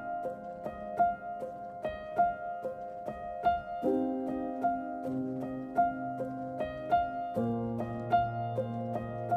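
Instrumental background music: a repeating pattern of short notes, about one accent a second, over held chords that change about four seconds in and again after seven seconds.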